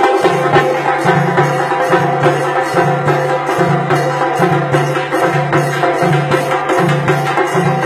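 Tassa drum ensemble playing loud and fast: rapid stick strokes on the tassa drums over a repeating low bass-drum beat.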